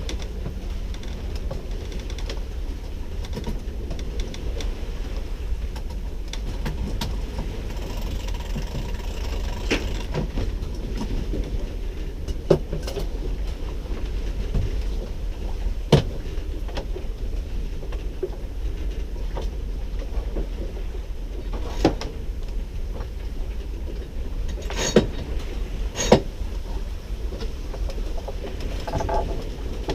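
Steady low wind rumble on the microphone aboard a sailboat under way, with scattered sharp knocks and clicks, several of them standing out about halfway through and again in the last third.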